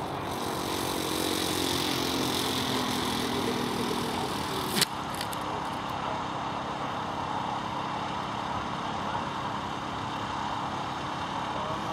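Model aircraft motor and propeller running steadily at low power as the radio-controlled Ju 87 Stuka rolls out on grass, then a single sharp knock about five seconds in as the model noses over, and the motor stops. Steady outdoor background noise remains after.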